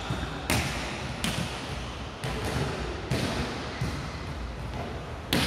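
Balls bouncing and thudding on a hard court floor, irregularly about once a second, each impact echoing in a large hall.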